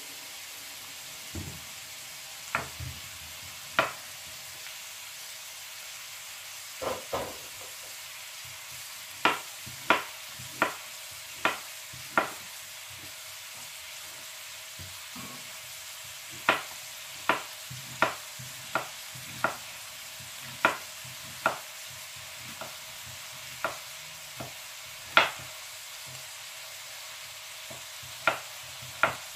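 Minced beef with garlic and onion frying in oil in a non-stick wok: a steady sizzle, broken by sharp clicks that come irregularly, often one every second or so.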